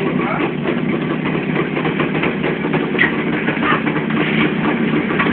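ČZ 350 motorcycle's two-stroke engine running steadily, with a hum from a bearing that the owner suspects is a worn wheel bearing or gearbox bearing.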